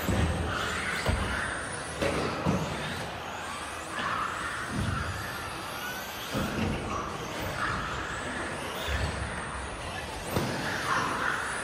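Mugen MSB1 1/10-scale electric RC buggy running on a carpet track: a high electric-motor whine rising and falling with the throttle over tyre noise, with short low thuds every second or two as it lands jumps and hits bumps.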